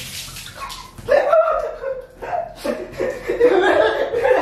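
Laughter in short repeated bursts, starting about a second in.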